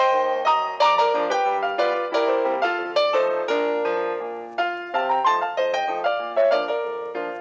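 Background music: a piano-like keyboard plays a steady melody of struck notes that ring and fade, about two or three notes a second.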